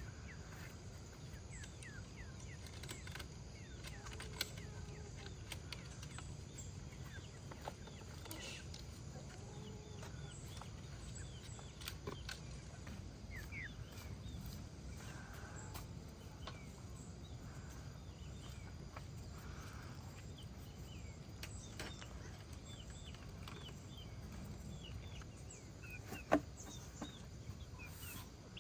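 Faint farmyard ambience: chickens calling softly, with scattered short chirps over a steady low background noise, and one sharp click near the end.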